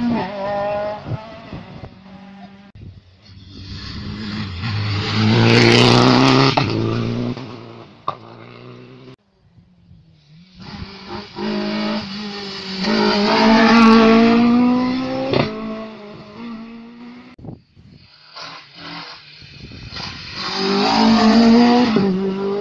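Rally cars passing one after another at full speed, three in all, each engine revving hard with its note climbing in pitch as it accelerates, swelling loudest as it goes by, then fading. The last is a Mk2 Ford Escort rally car.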